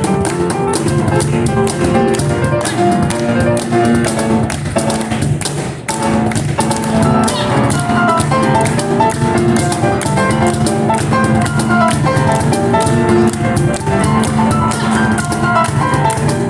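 Kawai piano and cajon playing together live: quick piano chords and melody over dense, driving cajon hits, briefly dropping in loudness about five to six seconds in.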